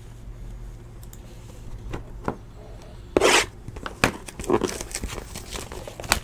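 Trading cards being flipped through and handled: soft rustles and taps, with one brief, loud rasping swipe about three seconds in, then a few sharp clicks and rustles.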